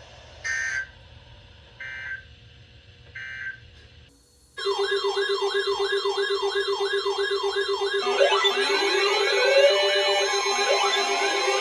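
Three short warbling data bursts of a NOAA Weather Radio SAME alert, about a second and a half apart: the end-of-message signal closing the warning. From about four and a half seconds, a loud electronic siren-like alarm takes over, sweeping up and down in pitch three to four times a second over a steady tone, with more rising sweeps layered in from about eight seconds.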